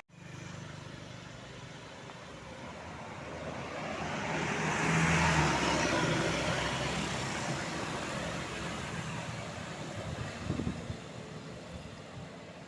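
A road vehicle passing by: engine and tyre noise swell to their loudest about five seconds in, then fade away.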